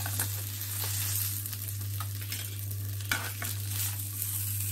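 Fish fillets sizzling on the hot, buttered plates of an electric sandwich griller: a steady hiss with scattered small crackles, a sharper one about three seconds in.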